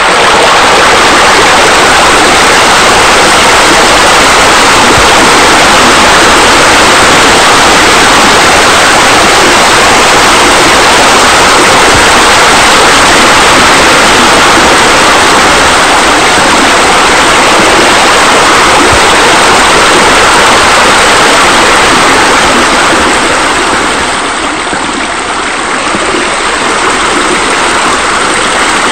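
Steady rush of running water, like water falling into a pool, easing a little in level about two-thirds of the way through.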